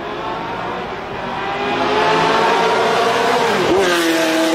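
Ford GT40's V8 engine under hard acceleration as the car approaches, its pitch climbing steadily, then falling sharply as it passes close by about three and a half seconds in. It then pulls away on a steady, lower note.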